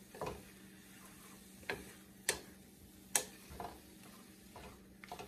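Wooden spatula tapping against a stainless steel skillet while stirring vegetables: several short, irregularly spaced taps.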